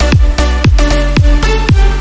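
Background electronic dance music with a steady kick-drum beat about twice a second over deep bass.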